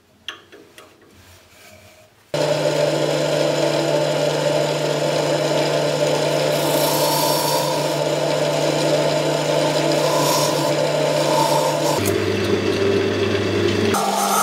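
Wood lathe starting up suddenly about two seconds in, then running with a steady hum while a steel file-like tool scrapes the spinning silverberry wood. The hum drops lower about twelve seconds in and rises again near the end. Before the start there are only a couple of faint clicks from handling the piece.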